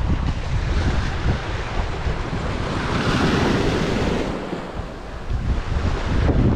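Small sea waves breaking and washing up a cobble shore, with a swell of surf hiss about three seconds in. Wind buffets the microphone with a low rumble throughout.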